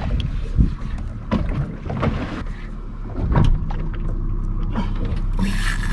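Boat engine idling with a steady low hum, broken by scattered knocks and a short hiss near the end.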